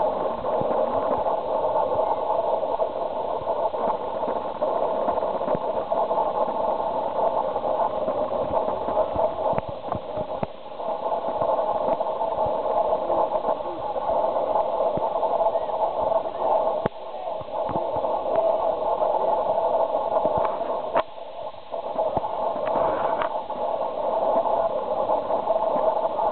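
Indistinct chatter of many voices, muffled and thin, with a scattering of sharp knocks.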